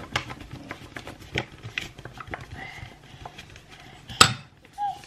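Metal fork clinking and scraping against a stainless steel mixing bowl as a toddler stirs a runny mixture, in irregular small clicks with one louder clink about four seconds in.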